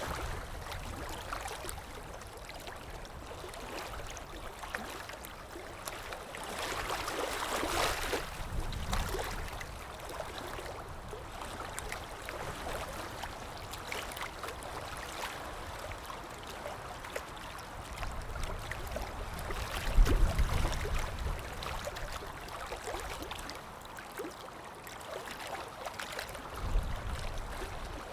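A creek running, a steady rush of flowing water. Two brief low rumbles stand out, the louder one about two-thirds of the way through and another near the end.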